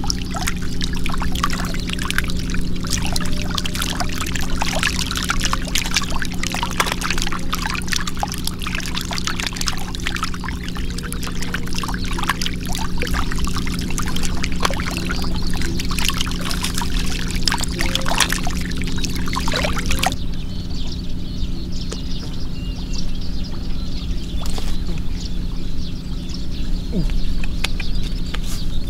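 Water splashing and pouring, with many small crackling splashes, over a steady low hum. About two-thirds of the way through, the splashing thins out and the hum carries on.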